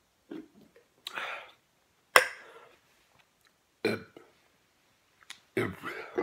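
A man belching after shotgunning a can of beer, two loud burps near the middle and end, with a gasping breath about a second in. A single sharp knock just after two seconds is the loudest sound.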